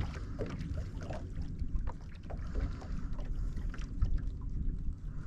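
Small waves lapping and splashing against a fishing boat's hull, with a low wind rumble on the microphone.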